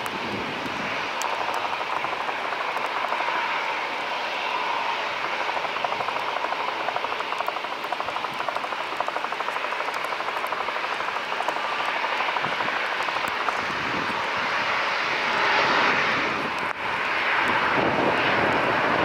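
Jet airliner engines running at idle: a steady whine over a rushing noise. About 17 s in the sound breaks briefly and comes back louder as a taxiing airliner's engines.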